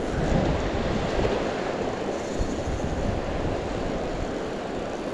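Steady rushing of a mountain creek's riffles and small rapids, an even hiss and rumble of moving water.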